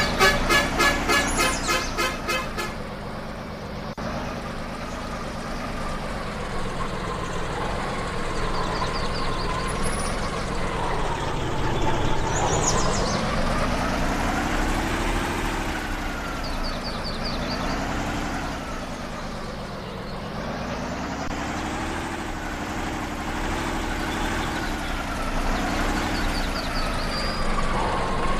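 A horn-like tone beeping rapidly for the first couple of seconds, then an off-road vehicle's engine running under load, its pitch rising and falling again and again as the throttle comes on and off.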